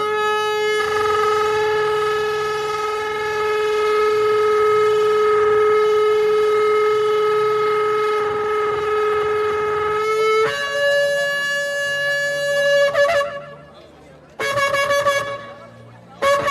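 Shofar blown in one long, steady blast of about ten seconds, then jumping to a higher note, breaking off, and sounding two shorter blasts near the end. It is sounded as a call to repentance.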